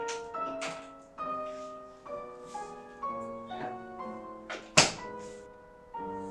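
Gentle piano music with a single sharp thunk about five seconds in, from the apartment's front door being handled.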